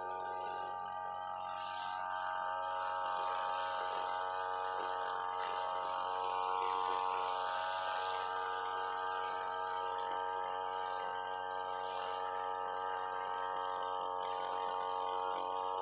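UMA UM328 brush cutter engine running steadily at working speed while its toothed nylon line cuts grass at ground level, swelling slightly about halfway through.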